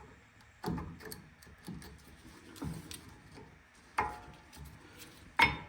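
Brake pad with its steel spring clip being pushed and seated into a brake caliper: several separate metallic clicks and knocks, the two near the end ringing briefly.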